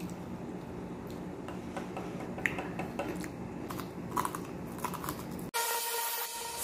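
Faint crunching and scattered light clicks of people eating crispy fried chicken-skin chicharon from a plate. About five and a half seconds in it cuts to a bright rushing synth intro sound with steady tones.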